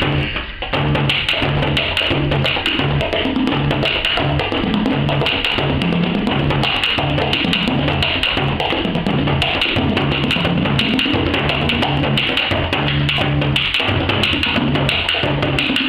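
Two bodhráns played together with tippers in a fast, dense rhythm, the deep drum notes shifting in pitch from stroke to stroke.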